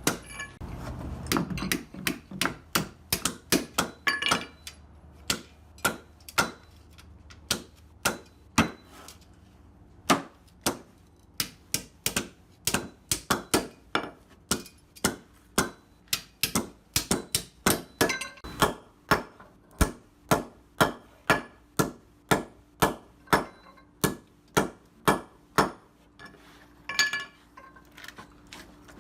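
Hammer driving tack strip nails into a concrete floor: repeated sharp blows, about one or two a second, in runs with short pauses.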